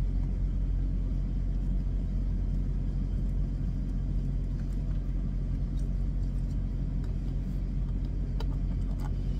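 A truck's diesel engine idling: a steady low rumble with a constant hum, heard from inside the cab.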